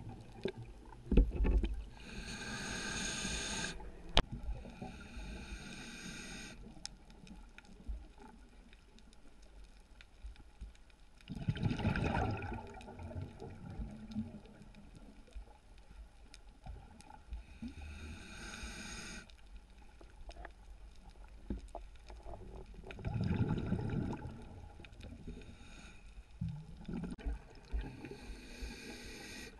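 A scuba diver's regulator, heard underwater through the camera housing: a hiss on each inhalation and a burst of bubbling on each exhalation, in a slow breathing cycle, with scattered faint clicks between breaths.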